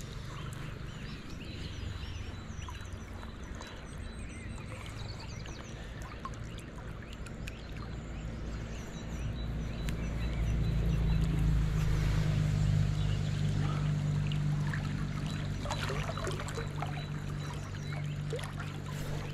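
River water flowing steadily, with a low rumble that grows louder about ten seconds in and eases off a few seconds later.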